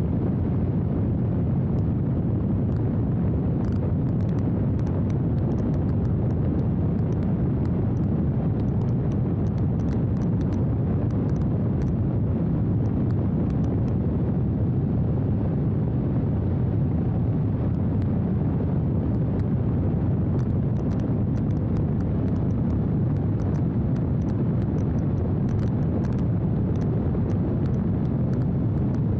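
Steady rush of wind buffeting a microphone: a low, unbroken roar with faint scattered crackles and no clear motor tone.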